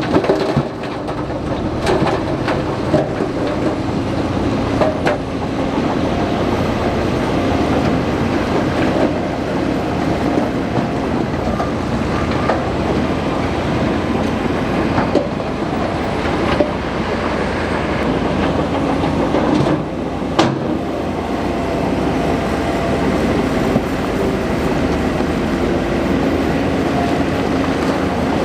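Bulldozer's diesel engine running steadily under load, with the rattle of its steel tracks and a few sharp clanks.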